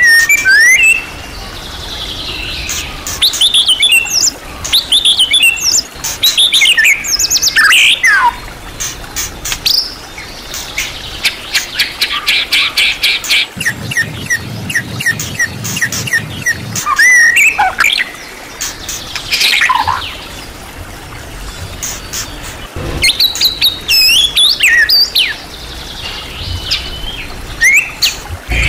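White-rumped shama (murai batu) singing a long, varied song of whistled phrases, rapid trills, sliding notes and sharp clicking chatter, the phrase changing every second or so, rich in mimicked material.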